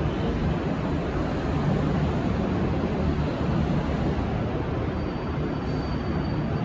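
V/Line VLocity diesel railcar set running steadily with a low engine hum, with a faint high whine over the last couple of seconds. No horn sounds.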